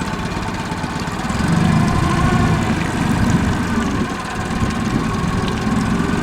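A dinghy's outboard motor running steadily, growing a little louder about a second and a half in.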